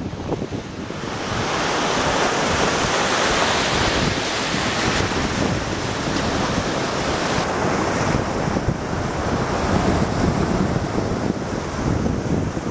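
Sea surf breaking and washing up onto a beach, a continuous rushing of foaming waves, with wind buffeting the microphone.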